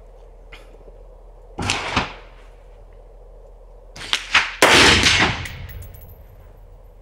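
Gunshots from a rifle fitted with a muzzle brake: two blasts about three seconds apart, the second louder with a longer tail and a couple of sharp clicks just before it.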